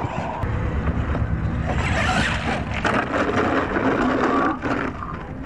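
Radio-controlled monster truck driving hard on a gravel lot, its tires churning and scattering loose stones, in a steady loud rumble with scratchy gravel noise.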